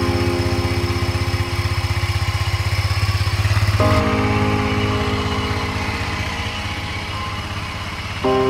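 250cc ATV engine idling steadily with an even pulse.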